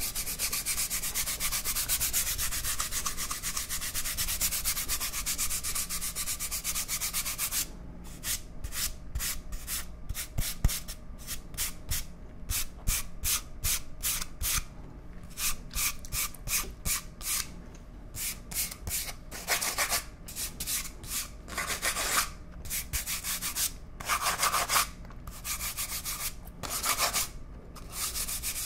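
Cardboard toilet-paper tube rubbed and scratched with the fingers close to the microphone: a fast continuous scratchy rubbing for the first seven or eight seconds, then separate short strokes, several a second, with a few longer strokes among them.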